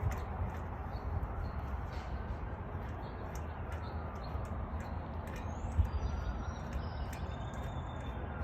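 Birds chirping over a steady low rumble, with one short knock a little under six seconds in.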